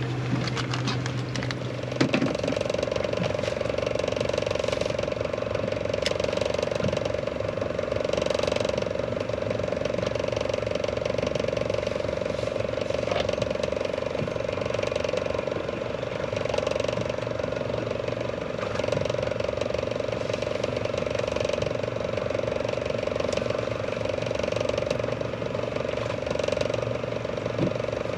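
Fishing reel winding in line with a steady mechanical hum that starts about two seconds in, hauling up a doubled hookup of two fish.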